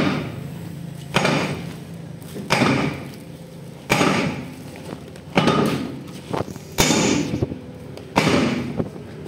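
Hammer blows on steel parts of a tank road wheel hub: about seven heavy strikes, one every second and a half or so, each ringing briefly.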